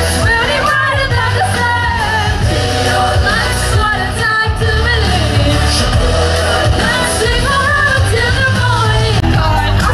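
Karaoke: singers performing into handheld microphones over a loud pop backing track, with a steady heavy bass beat running under the sung melody.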